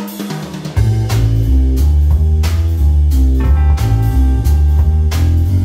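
Background music: a guitar tune with bass and drums, the bass and drums coming in just under a second in.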